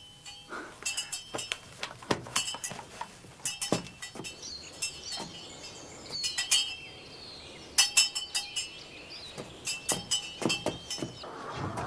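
Light metallic clinks and chimes struck again and again at an uneven pace, each ringing briefly, with faint high chirps around the middle.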